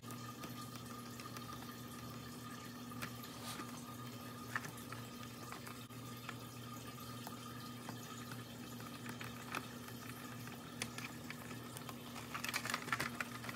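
Screwdriver turning small screws into the plastic frame of a Big Mouth Billy Bass singing fish, with scattered small clicks and scrapes and a busier patch of clicks near the end, over a steady low hum.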